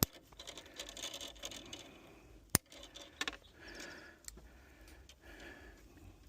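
Scraping and rubbing of hands handling wire and tools, with two sharp clicks: one right at the start and one about two and a half seconds in.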